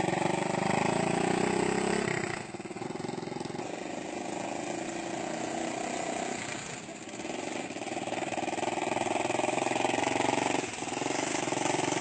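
Helicopter running steadily, a continuous engine-and-rotor drone. It drops in level about two seconds in and dips briefly again near the end.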